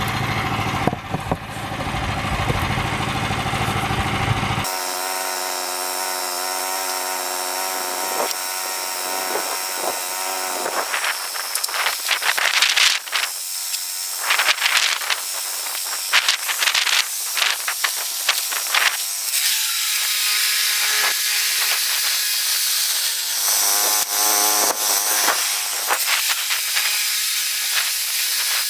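Woodland Mills HM122 band sawmill running. About five seconds in the sound changes abruptly from a deep engine sound to a thinner mechanical whine, then frequent sharp knocks and clatters come through it.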